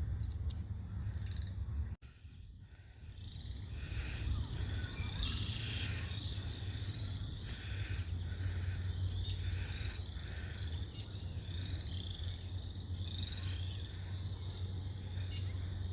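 Birds chirping and calling over and over, many short high notes overlapping, above a low steady rumble. The sound drops out abruptly about two seconds in, and the calls are busiest after that.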